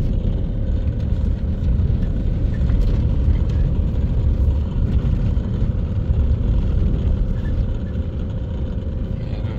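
Steady low rumble of a car's engine and tyres driving slowly, heard from inside the cabin.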